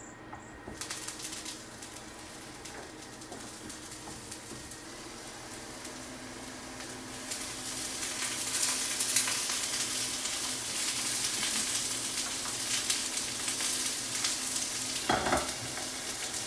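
Broccoli in olive oil sizzling and crackling in a hot frying pan, the sizzle growing louder about halfway through. A brief knock near the end.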